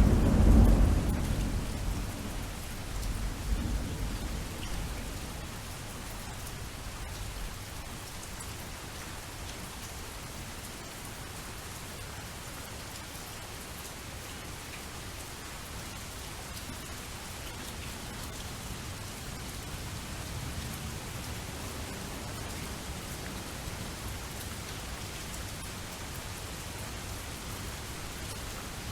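Steady rainfall with a roll of thunder that peaks at the start and rumbles away over the first few seconds, leaving an even rain hiss.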